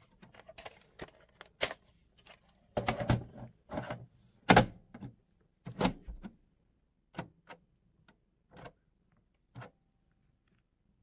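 Irregular clicking and tapping of a computer keyboard and mouse, a dozen or more sharp clicks that thin out in the second half and stop shortly before the end.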